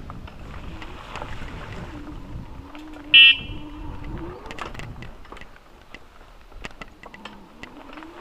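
A single short, loud horn-like beep about three seconds in, over wind rumble on the microphone and scattered clicks.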